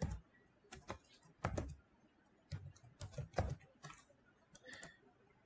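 Typing on a computer keyboard: single key clicks at an uneven pace, with short pauses between them.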